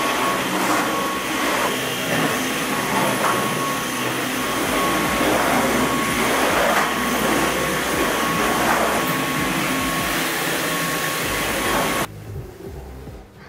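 Cordless stick vacuum cleaner running steadily with a high, constant whine over its airflow noise, switching off suddenly near the end.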